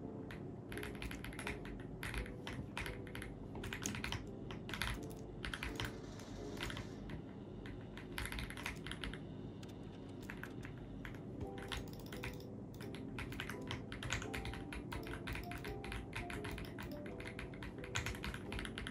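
Typing on an AULA F75 mechanical keyboard: rapid, irregular keystroke clicks in bursts, with brief lulls between runs.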